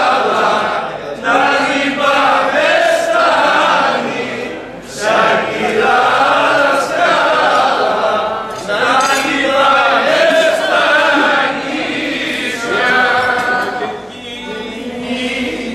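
A group of men singing a Greek folk song together in long held phrases, with short pauses for breath between them.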